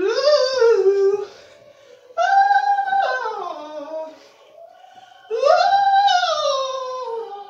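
Dog howling: three long howls, each rising in pitch and then sliding slowly down, with short pauses between them.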